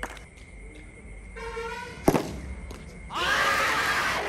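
A cricket bat sharply strikes the ball about two seconds in, the loudest sound. About a second later players break into loud shouting as the shot goes for four runs.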